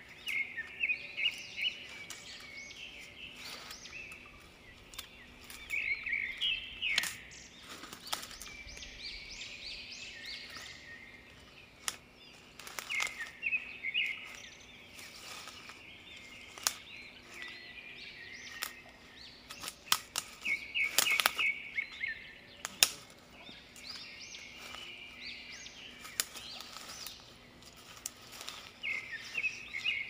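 Birds chirping in the forest in short, quick clusters every few seconds, over the crackle and snap of footsteps on dry leaves and twigs.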